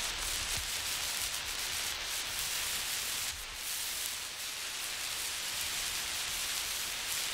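Lit emergency road flare burning with a steady harsh hiss. The hiss rises and falls slightly as the flare is swung side to side, with a brief dip a little over three seconds in.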